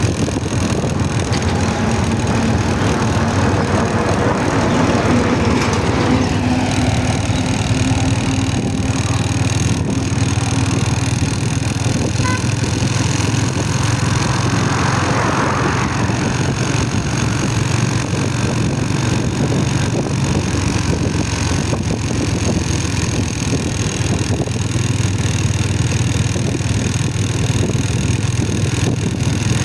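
A motor vehicle's engine running steadily, with road noise, the level even throughout. A brief rise in hiss comes about halfway through.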